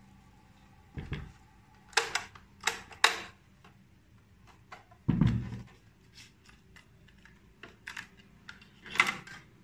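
A Sony CFS-B55 radio-cassette recorder being handled by hand: a string of sharp plastic clicks and knocks, with a heavier thump about five seconds in and a cluster of clicks near the end.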